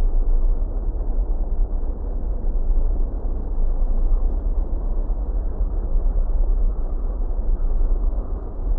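Strong wind buffeting the microphone: a steady low rumble with no let-up.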